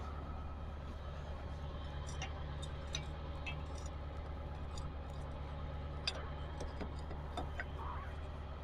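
A steady low hum with scattered light ticks and clicks over it.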